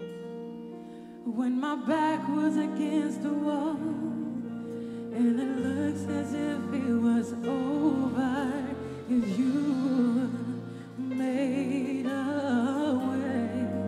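A woman singing a slow gospel worship song with wavering held notes and runs, over sustained keyboard chords. Her voice comes in about a second in.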